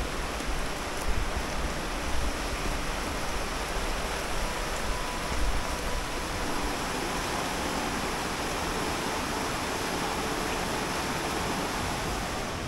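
Steady rush of the Vouraikos river's water running over rocks in the gorge.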